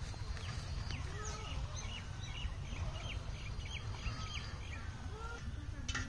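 Birds calling: a quick run of short high chirps, a few each second, through the middle, with a few lower calls, over a steady low rumble.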